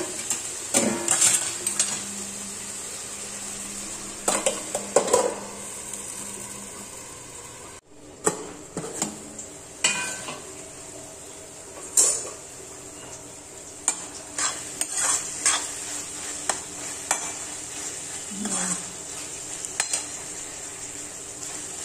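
Steel spatula stirring and scraping through frying vegetables in a metal kadhai, with irregular clinks of metal on metal over a steady sizzle.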